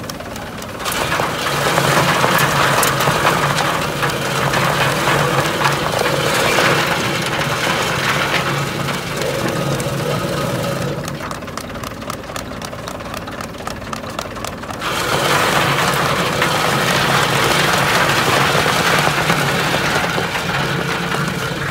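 Tractor engine running steadily, driving a groundnut separator, with the machine's rattling noise over it. The rattle eases off for a few seconds a little past the middle, then comes back.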